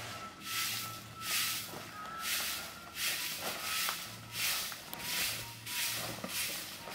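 Stick broom swishing over the ground in regular strokes, about one a second.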